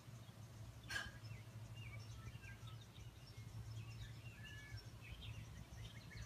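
Faint birdsong from outdoors, scattered short chirps and sliding notes, over a steady low hum. A single sharp click about a second in is the loudest sound.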